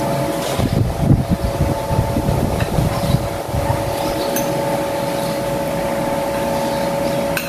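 Steady mechanical hum, like an electric fan or air conditioner running, with low irregular thuds in the first few seconds and a few light clinks of a spoon and fork on a ceramic plate.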